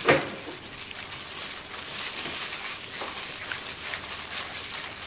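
Plastic food-prep glove crinkling and wet batter squishing as a gloved hand squeezes and mixes beaten duck egg with flour in a stainless steel bowl, with a sharp clink at the very start.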